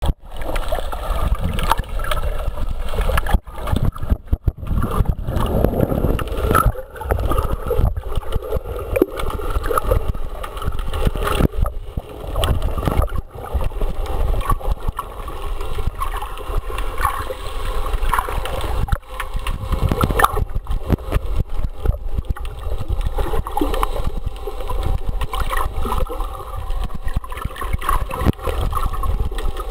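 Underwater sound picked up by the camera in the sea: a steady low rumble of moving water with scattered clicks throughout.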